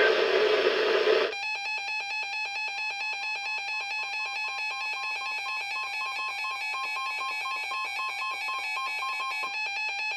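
Weather alert radio's alarm sounding for an incoming warning: a rapid, even electronic pulsing beep on several fixed tones. It starts about a second in, after a short burst of noise.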